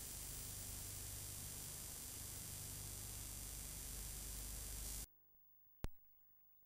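Steady hiss and low hum from an analogue TV or tape recording with no programme sound, which cuts off abruptly to silence about five seconds in; a single sharp click follows a moment later.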